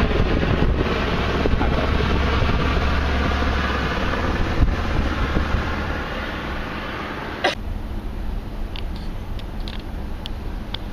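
Car driving slowly, with steady road and wind noise heard from inside the cabin. A sharp click comes about two-thirds of the way through, after which the hiss is much quieter, and a few faint ticks follow.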